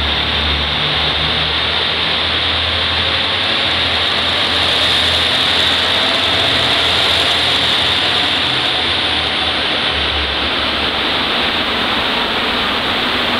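JR Kyushu KiHa 185 series two-car diesel railcar passing along a station platform: low diesel engine rumble and running noise over a steady hiss, a little louder as the train goes by about midway.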